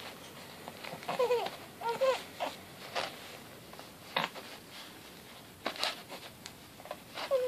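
Young baby cooing: short coos that bend up and down in pitch, one about a second in, another about two seconds in, and one more near the end, with a few sharp clicks between them.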